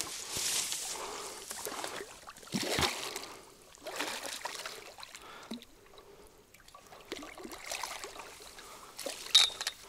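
Water splashing and sloshing in irregular bursts as a hooked carp thrashes at the surface and a landing net is worked through the water around it. The loudest splashes come about three seconds in and again near the end.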